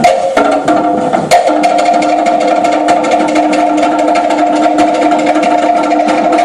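Polynesian dance music played over loudspeakers: fast, dense drumming with sharp wooden-sounding strikes over steady held tones.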